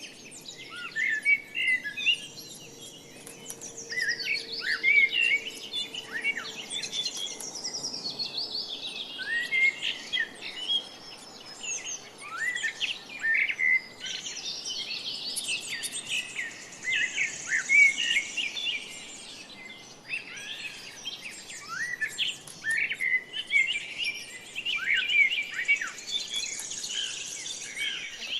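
Many small birds chirping together: a constant chatter of short, overlapping chirps with brief higher trills now and then.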